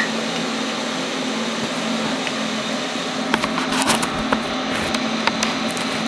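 Steady fan-like hum, with a few light ticks in the second half.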